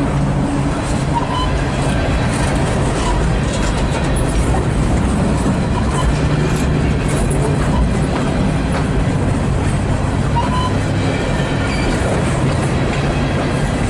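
Freight train of refrigerated boxcars rolling past close by: a steady, loud noise of steel wheels on the rails, with faint clicks here and there.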